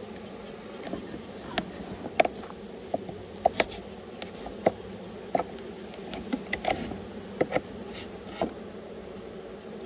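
Package honeybees buzzing in a steady hum, with scattered sharp clicks and taps from the wooden package slat and hive tool being handled.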